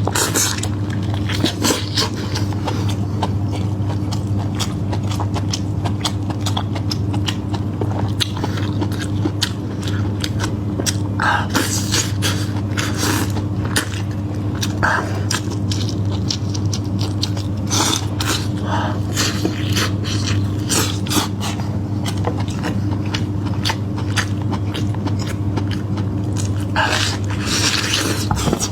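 Close-up eating sounds: biting and chewing meat, with many short wet clicks and crackles. A steady low hum runs underneath.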